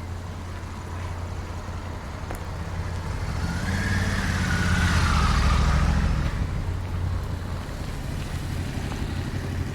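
A motor passing by: its engine swells to a peak about five seconds in, then fades away, over a steady low hum.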